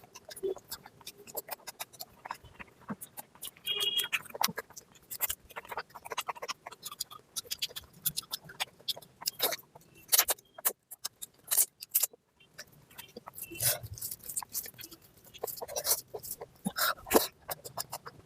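Close-miked eating sounds: wet chewing and smacking of curry and rice, a dense run of short, irregular clicks, with a brief squeak about four seconds in.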